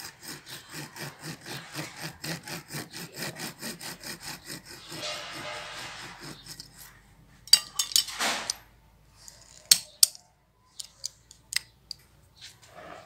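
Hand pruning saw cutting through a bonsai branch in quick, even back-and-forth strokes, about four or five a second, for about six seconds. A few sharp cracks and clicks follow, the loudest a little past halfway.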